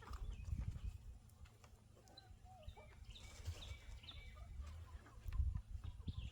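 Backyard chickens softly clucking, with a short run of higher chirps about halfway through, over a low rumble.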